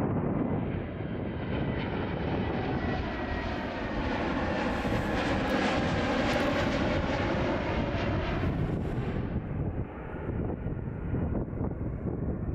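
An airplane passing close by: its engine noise swells to a peak around the middle and then fades away, over wind rumbling on the microphone.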